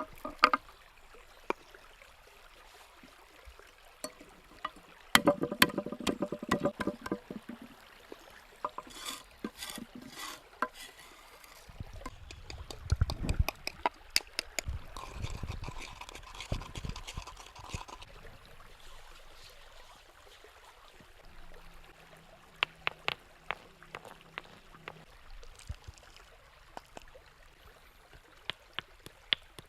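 Food-preparation handling sounds: irregular sharp clicks, taps and knocks of hands working with utensils and ingredients, with heavier knocks about halfway through and stretches of liquid being poured or stirred.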